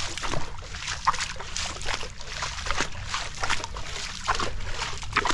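Footsteps splashing and squelching through ankle-deep water and wet sand of a shallow creek bed, an uneven run of sharp wet slaps over a low rumble.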